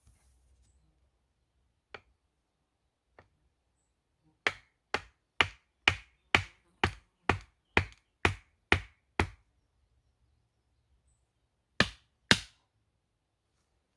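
Sharp impact strikes: two light knocks, then a steady run of eleven hard blows about two a second, and two more near the end, like chopping or hammering.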